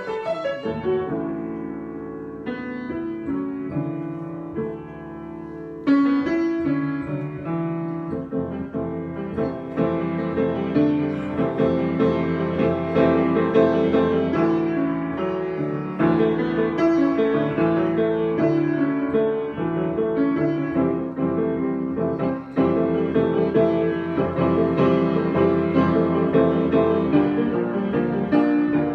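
Solo piano improvisation, softer for the first few seconds, then fuller and louder from about six seconds in.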